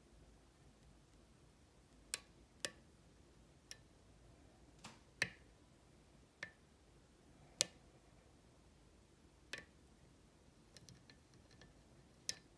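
Sharp metal clicks of a lock pick and tension wrench working the sliders of a Kwikset SmartKey Gen 1/2 lock cylinder: about nine clicks at uneven intervals, then a quick run of faint ticks near the end.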